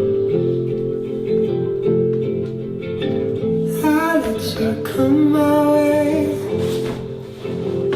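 Background music: a song with plucked acoustic guitar, and a sung vocal line coming in about halfway through.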